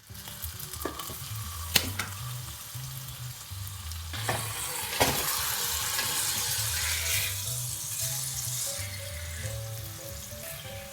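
Food sizzling in hot oil in a frying pan, the hiss swelling for several seconds in the middle, with a few sharp clicks of a utensil against the pan.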